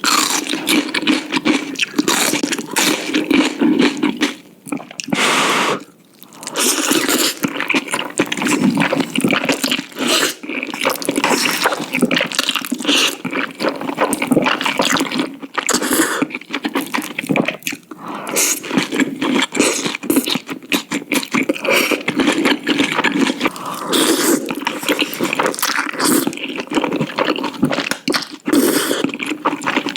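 Loud, wet slurping and chewing of spicy noodles, a dense run of short smacking and sucking sounds with a brief pause about five seconds in.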